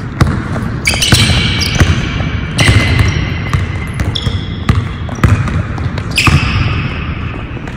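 Basketball dribbled hard on a hardwood gym floor, a string of irregular bounces, with sneakers squeaking sharply on the boards as the player cuts and changes direction.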